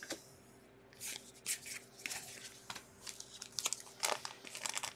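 Quiet, scattered rustles and soft clicks of a stack of trading cards being flipped through by hand and set down on a mat.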